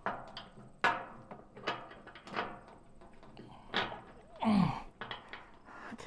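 Metal hardware being worked onto a bolt on a wood chipper while a washer is fitted: a series of separate knocks and clinks, about five in all, with a brief noisy rush about four and a half seconds in.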